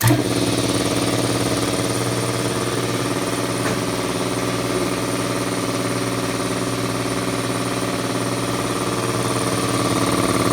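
NorthStar 60-gallon air compressor's electric motor and oil-lubricated piston pump kicking on suddenly and running steadily, pumping up the tank.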